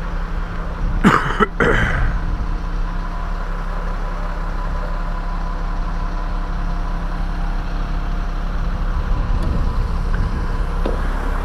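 An engine idling steadily, with a brief louder noise about a second in.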